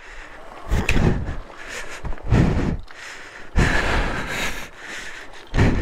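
Heavy breathing close to the microphone, a noisy breath about every second and a half, as a motorcycle rider picks their way down a steep, loose rocky track. There is a sharp click about a second in.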